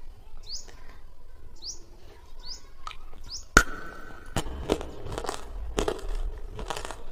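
Repeated bird-like chirps for about the first three seconds, then a sharp click, followed by close-up biting and chewing of jamun (black plum) fruit, several crisp crunches in a row.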